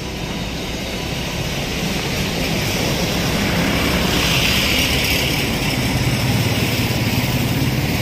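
Motor vehicle engine and road noise, a steady rumble under a wide hiss that grows louder over the first few seconds and then holds.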